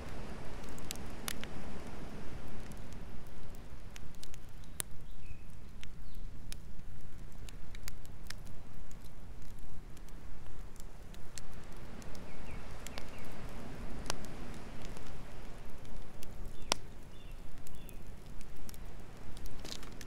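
Log campfire burning, with sharp crackles and pops scattered irregularly through it over a low, continuous rumble.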